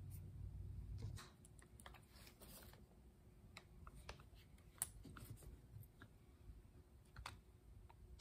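Faint, irregular small clicks and ticks of a screwdriver and small screws against a Briggs and Stratton double-barrel carburetor's metal body as the screws are driven back in during reassembly.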